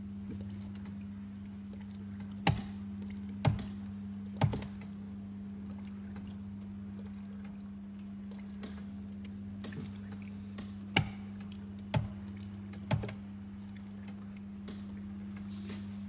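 A steady low hum with sharp knocks in two sets of three, each about a second apart: the first set about two seconds in, the second about eleven seconds in.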